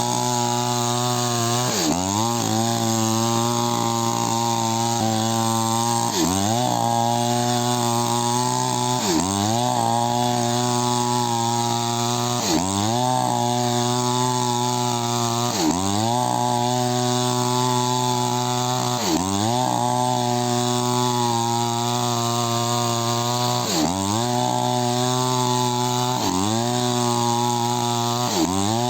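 Chainsaw cutting candlenut tree wood, running steadily at high speed; its engine pitch dips sharply and recovers about every second and a half as the chain bites into the wood.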